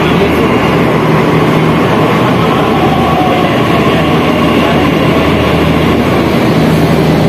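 Delhi Metro train pulling into the platform behind the platform screen doors: a loud, steady rumble of wheels and traction motors, with a faint falling whine about three to four seconds in.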